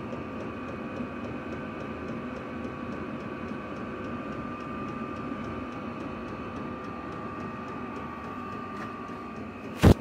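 Chinese diesel air heater running, a steady whirring hum from its fan with a thin steady whine over it. A single sharp knock comes near the end.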